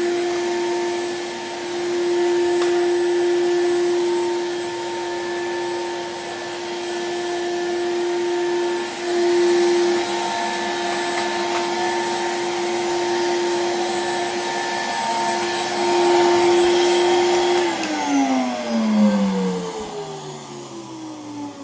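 1987 Hoover Compact Electronic S3500 cylinder vacuum cleaner running with a steady motor whine, its loudness swelling and dipping a little. Near the end it is switched off and the motor winds down, its pitch falling.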